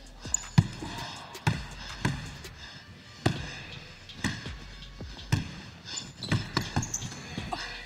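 Basketball being dribbled on a hardwood gym floor: sharp bounces about once a second, coming quicker near the end.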